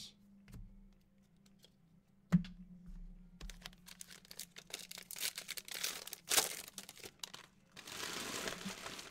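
Trading-card pack wrappers crinkling and being torn open, with a sharp tap a couple of seconds in, dense crackling in the middle and a steady rip-like hiss near the end.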